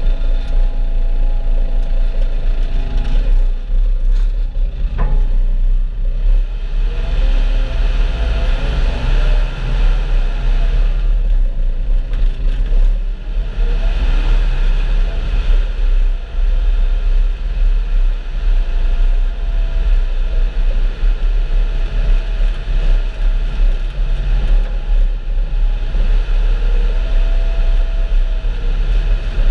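Farm tractor engine running steadily with a low rumble while a feed mixer wagon is loaded, a faint whine rising and falling in pitch now and then. A single sharp click about five seconds in.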